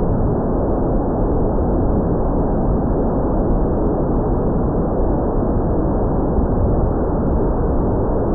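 Steady rushing wind noise on the microphone, with no distinct motor or propeller tone.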